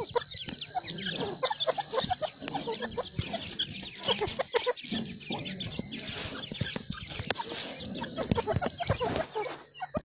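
Grey francolin pair and their chicks calling: a busy run of short calls, several a second.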